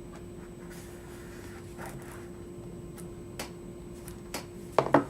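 Product packaging being handled: faint rustles and a few small clicks and taps, with a sharper knock near the end. A steady low hum sits underneath.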